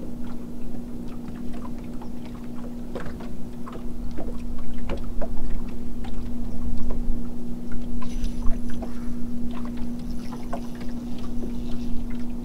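Small waves lapping and slapping against a fishing boat's hull in irregular little splashes, over a steady low hum.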